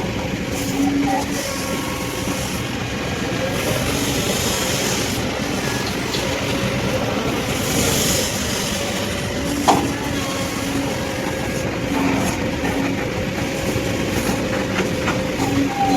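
Kobelco excavator at work: its diesel engine runs steadily under load with metallic clanking, and one sharp clank about ten seconds in.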